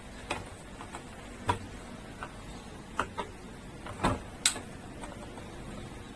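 Irregular light clicks and taps of small hand tools handling a TV power-supply circuit board, about seven over a few seconds, sharpest about a second and a half in and again after four seconds.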